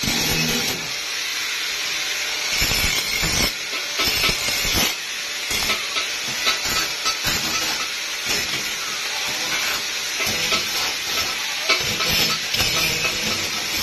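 Angle grinder with its disc against steel inside a van's sheet-metal body: a steady harsh hiss with uneven surges as the disc bites, smoothing down rough protrusions on the metal.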